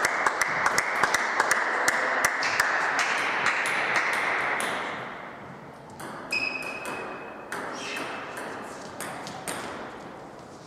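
Table tennis balls clicking sharply and irregularly off bats and tables, several clicks a second, over a steady hiss. The hiss fades away about halfway through, and the clicks become sparser after that.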